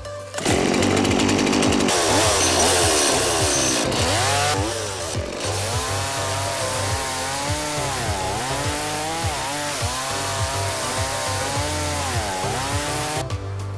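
Stihl MS170 two-stroke chainsaw coming in suddenly at full revs, then cutting through a log, its pitch dipping and rising again and again as the chain bites and frees. It cuts off shortly before the end. Background music with a steady beat runs underneath.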